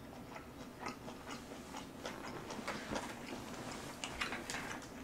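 Quiet chewing with scattered small clicks of a metal spoon against a rice bowl.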